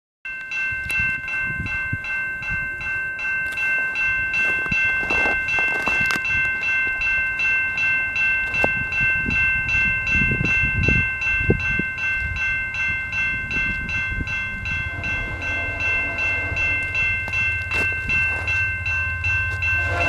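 Level-crossing warning bell ringing steadily in even, rapid strokes. About 15 seconds in, a low steady rumble of the approaching train grows beneath it.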